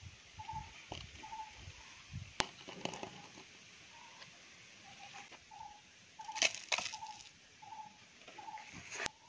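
Loose potting soil poured into a black plastic nursery pot, with a crunching rustle loudest about six and a half seconds in and a few sharp clicks of the pot being handled. A faint short high note repeats steadily behind it.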